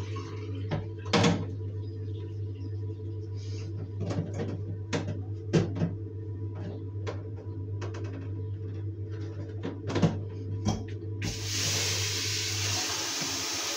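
Small plastic waste bin knocking and clattering against a ceramic bathroom sink as it is handled, a string of sharp knocks over a low steady hum. About eleven seconds in, the tap comes on and water runs with a steady hiss.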